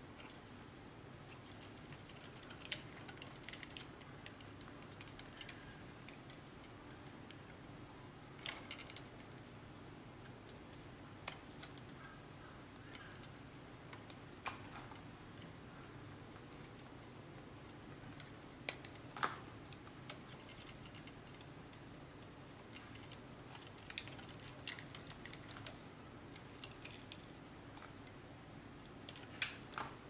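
Scattered small clicks and rattles of copper wires and lineman's pliers being handled at a plastic electrical box, in small clusters spaced a few seconds apart, over a low steady hum.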